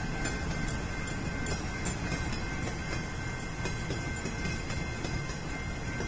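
Freight train of empty bulkhead flatcars rolling steadily past, a continuous low rumble of wheels on rail with faint repeated clicks. A steady high tone runs over it.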